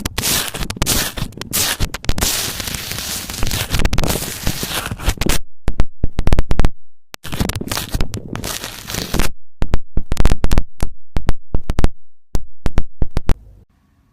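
Slime being squeezed and pressed close to the microphone, giving dense crackling and popping clicks. The clicks stop in short breaks, then come back sparser near the end.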